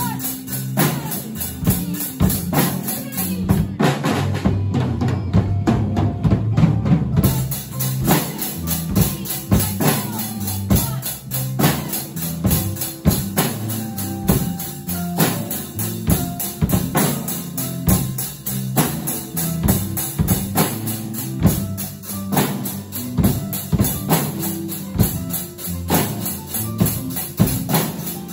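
Several Yamaha drum kits with Zildjian cymbals played together in a steady rock beat, dense cymbal and drum hits, over a backing track with a bass line.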